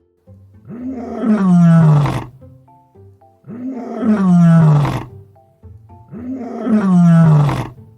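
Lion roaring three times, each roar sliding down in pitch, with background music playing underneath.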